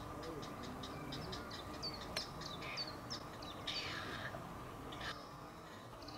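Grey heron chicks begging in the nest: a rapid run of short, high ticking calls, about six a second, for the first three seconds or so, then a few longer, drawn-out notes.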